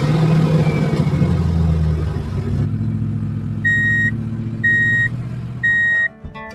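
A vehicle engine running steadily, with three reversing beeps about a second apart in the second half; both cut off suddenly near the end.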